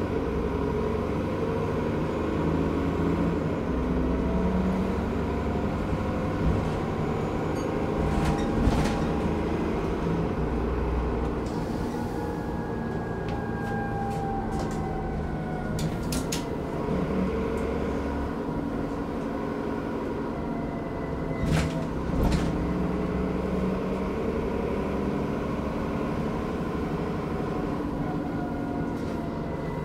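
Inside the upper deck of a Transbus ALX400-bodied Dennis Trident double-decker bus on the move: engine and drivetrain running steadily, with a whine that glides up and down in pitch and a few sharp knocks and rattles.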